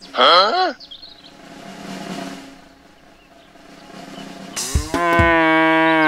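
A cow mooing once, a long steady moo of just over a second near the end. It is opened by a short, loud, wavering cry that bends up and down in pitch.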